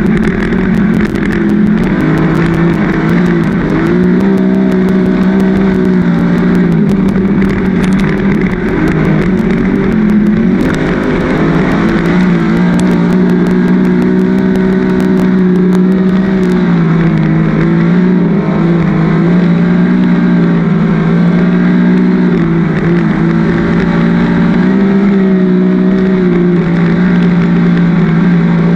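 A 410 winged sprint car's methanol-fuelled V8, heard onboard at racing speed. The engine pitch dips and climbs again every several seconds as the car lifts for the turns and gets back on the throttle down the straights. Sharp ticks of flying dirt come through the first half.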